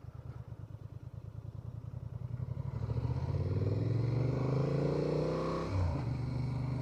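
Honda Transalp 750's parallel-twin engine ticking over with an even pulse, then pulling away: its pitch climbs and it gets louder for about three seconds, dips briefly at a gear change near the end, then holds a steady note.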